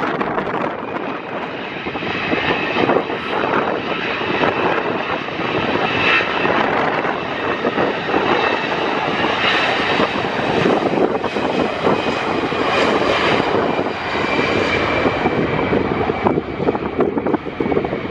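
Airbus A320's twin jet engines running at high power on departure: a steady rushing noise with a faint high whine over it.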